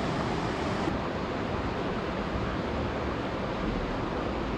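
Shallow mountain river running over a stony bed: a steady rush of flowing water with no breaks.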